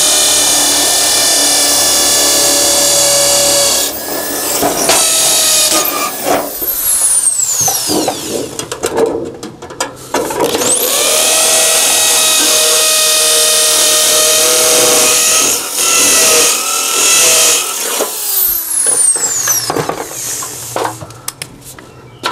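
Corded hammer drill with a masonry bit drilling through an aluminium flashing into a brick wall's mortar joint. It runs steadily in two long spells, each ending as the motor winds down, with shorter bursts and knocks between.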